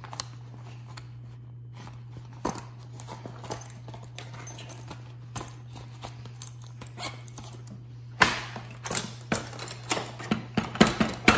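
Metal hand tools clattering and knocking in the plastic organizer tray of a Milwaukee Packout toolbox as they are rummaged through, loud and busy from about eight seconds in. Before that, only light taps from handling a zippered tool pouch, over a steady low hum.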